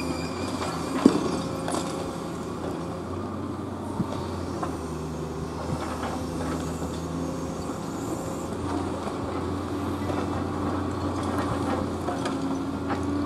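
Long-reach demolition excavator running steadily, its engine and hydraulics humming as the crusher jaws work at a warehouse wall. A sharp crack of breaking material comes about a second in, and a smaller knock at about four seconds.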